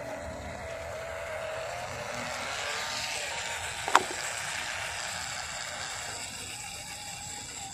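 Small electric motor and geared drivetrain of an MN99S 1:12 scale RC crawler running as it drives over dirt, with a whine that wavers in pitch. A single sharp click about four seconds in.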